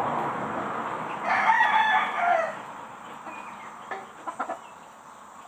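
A rooster crows once, starting about a second in and lasting a little over a second, its pitch dropping at the end. A few short knocks follow near the end.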